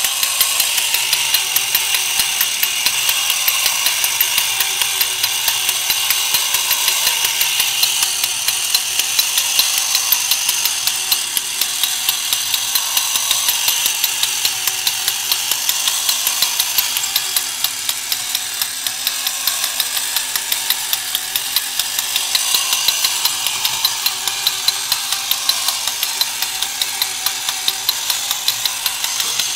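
Horikawa Piston Action Engine Robot, a 1970s battery-operated toy, running: its motor and gear train whirr and clatter with a fast, even ticking.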